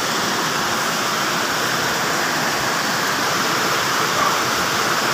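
A steady rushing hiss at an even level, with no knocks, clicks or pitched tones in it.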